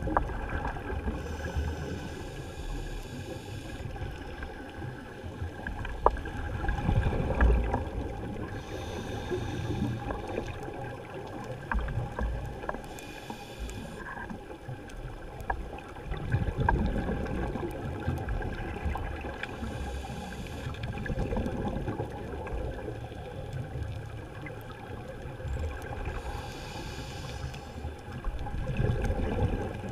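Underwater ambience through a camera housing: five bursts of a scuba diver's exhaled regulator bubbles, several seconds apart, over a low rumble of moving water, with a few faint clicks.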